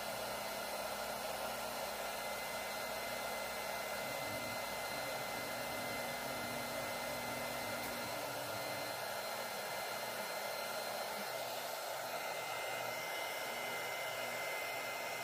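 Steady whooshing airflow of a small electric blower motor with a faint high whine, running unchanged throughout.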